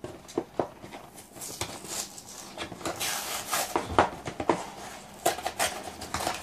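A plastic blister pack being opened by hand: the stiff clear plastic crackles and clicks irregularly as it is worked loose from its cardboard backing card, busiest about three to four seconds in.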